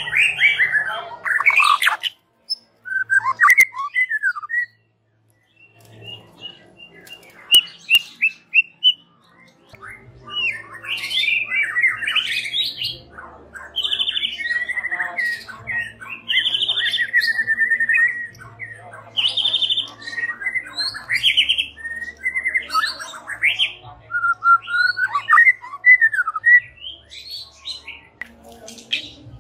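White-rumped shama singing a varied song of whistled phrases that glide up and down, broken by short pauses in the first few seconds and then almost unbroken.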